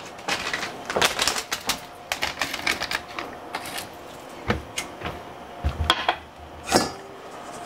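Rapid, irregular clicking and tapping, densest in the first few seconds, with a couple of dull knocks around the middle.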